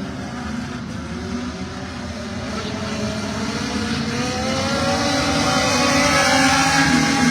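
Several race car engines running at speed around a racetrack, gliding in pitch and growing louder over the last few seconds as the cars come nearer.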